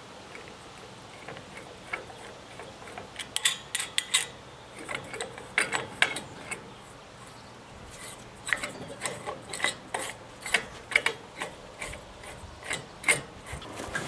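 Flagpole hardware being fitted and tightened onto the pole: irregular clicks, clinks and scraping, starting about three seconds in and coming in clusters.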